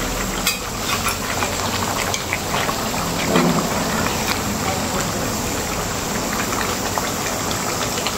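Curry duck bubbling and sizzling in a large aluminium pot over a gas burner, a steady crackle of small pops, stirred with a metal spoon.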